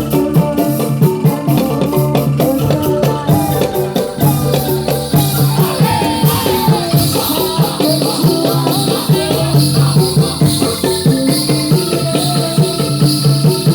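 Topeng Ireng dance music: drums and a dense rattling, jingling percussion playing a fast, steady beat.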